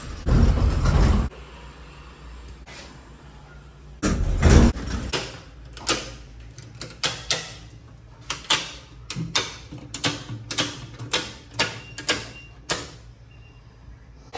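Two short, heavy thuds, then a run of sharp mechanical clicks, about one or two a second, from circuit breakers being switched in an electrical breaker panel.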